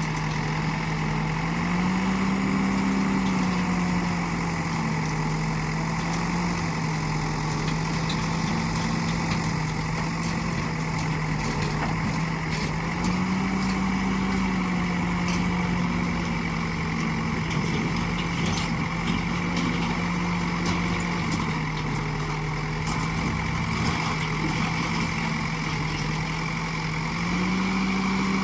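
Diesel engine of a JCB 3DX backhoe loader running steadily, its pitch rising briefly three times as it is loaded by the digging and loading work, then settling back. Faint knocks are heard now and then.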